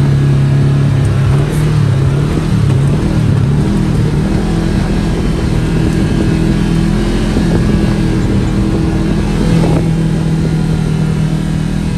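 Side-by-side UTV engine running as the machine is driven along a rough dirt trail. Its pitch shifts with the throttle for the first few seconds, then holds fairly steady.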